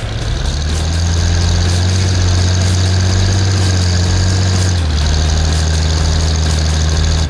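Engine of a 1969 Oliver 1650 backhoe running steadily; its pitch drops a little about five seconds in.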